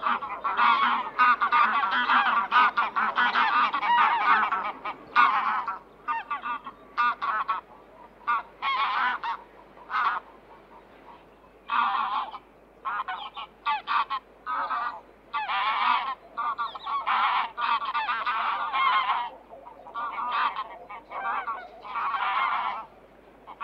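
Waterfowl calling: many honking calls in overlapping runs of a second or two, with short pauses between runs.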